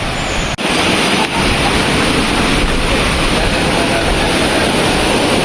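Steady rushing of a waterfall and river, an even noise with a brief break about half a second in.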